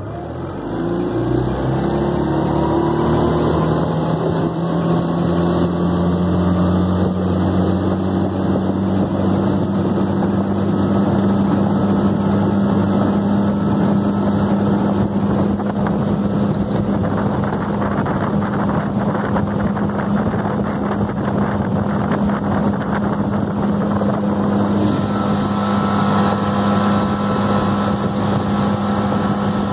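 Tohatsu 15 hp outboard motor opened up to full throttle, its pitch rising over the first couple of seconds, then running steadily at wide-open throttle near 6,100 rpm, about its maximum.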